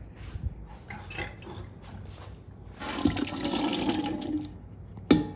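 Canned peas and their liquid poured from the can into an enamel pot, a wet glugging and splashing for about a second and a half, after a few light clicks of cans being handled. A sharp knock near the end is the loudest moment.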